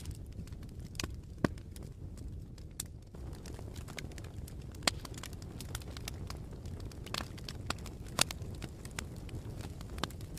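Wood fire burning in a fireplace: a steady low rumble of flames with sharp crackles and pops every second or so, the loudest near five and eight seconds in.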